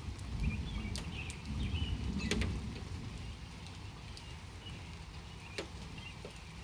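Light rain sprinkling, with a few scattered drops ticking sharply now and then over a low steady rumble. Short faint chirps are heard high above.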